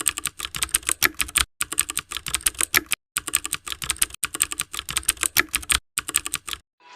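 Computer keyboard typing: rapid key clicks, about eight to ten a second, in runs broken by brief pauses, stopping just before the end.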